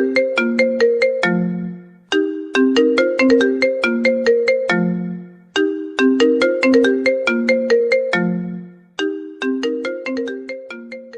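Mobile phone ringtone melody: a short phrase of quick, bright struck notes ending on a held low note, repeating about every three and a half seconds, three times over.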